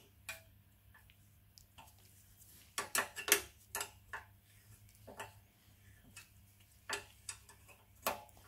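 Metal spanner clicking and clinking against the carburetor mounting bolt of a Briggs and Stratton 10 hp engine as the bolt is slowly undone. The clicks are sharp and come at uneven intervals, with the loudest cluster about three seconds in.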